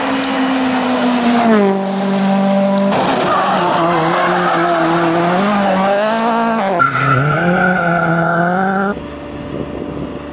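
M-Sport Ford Fiesta RS WRC rally car's turbocharged four-cylinder engine driven hard, heard in several short spliced clips. The pitch drops at an upshift about one and a half seconds in, then rises and falls as the car works through corners. About nine seconds in it cuts to a quieter, more distant engine.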